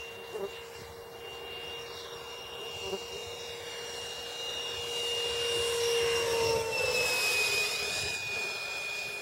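A scratch-built radio-controlled Avro Arrow jet flying, its 90 mm electric ducted fan giving a steady whine. The whine grows louder as the jet approaches, then drops in pitch as it passes about seven seconds in.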